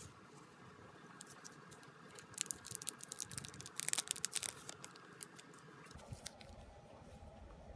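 Hands handling and opening packaging for photocards: a run of quick scratchy clicks and rustles, busiest from about two to four and a half seconds in.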